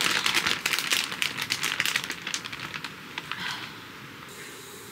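Plastic zip bag crinkling as raw pork is shaken out of it into a frying pan. The crinkling is dense at first and dies away about halfway through, leaving a faint steady hiss.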